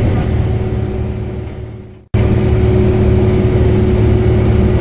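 City bus running, heard from inside: a steady engine and drivetrain hum with a few held tones. About two seconds in the sound fades away to a moment of silence, then cuts straight back in at full level.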